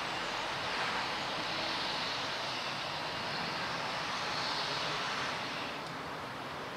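A passing vehicle: a steady rushing noise that eases off about a second before the end.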